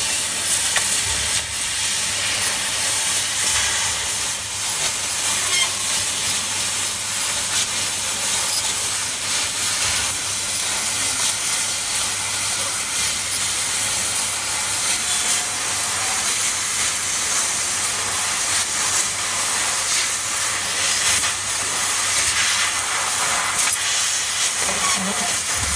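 CNC laser cutting machine cutting brass sheet: a loud, steady hiss of assist gas jetting from the cutting nozzle, with a low steady hum underneath.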